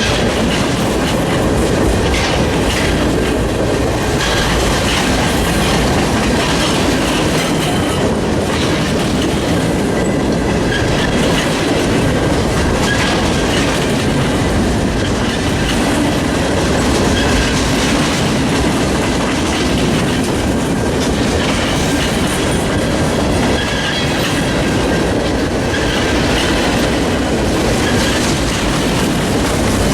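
Freight train cars rolling steadily past at trackside: a continuous rumble of wheels on rail, with faint high wheel squeal coming and going.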